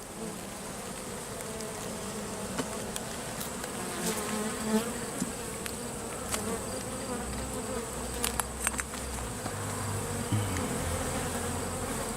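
Honey bees buzzing in a steady hum around an open hive full of bees, with a few short sharp clicks scattered through.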